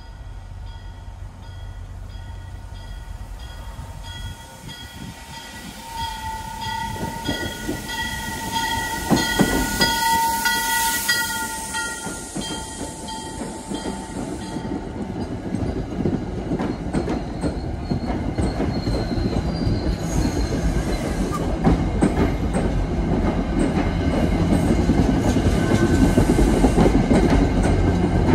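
A train sounding its horn, a chord held for several seconds up to about the middle, then rumbling in with the clickety-clack of wheels over rail joints. The clatter grows steadily louder toward the end.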